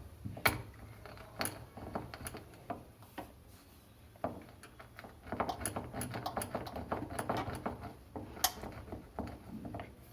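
White peppercorns being crushed for the remedy: a run of knocks and gritty clicks, sparse at first, then a busy clatter in the second half, with one sharp click near the end.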